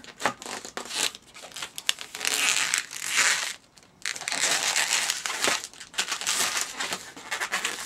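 Two long latex twisting balloons rubbing and squeaking against each other and the fingers as they are bent and twisted together into a three-finger twist. The sound stops briefly about three and a half seconds in, then carries on.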